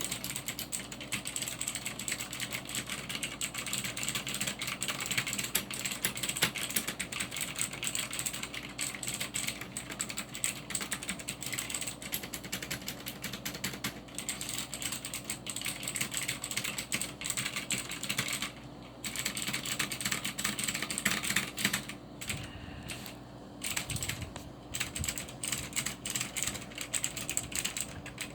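Fast continuous typing on a Cherry G80-3800 mechanical keyboard with Cherry MX Blue switches, a dense stream of sharp key clicks, broken by short pauses about two-thirds of the way through.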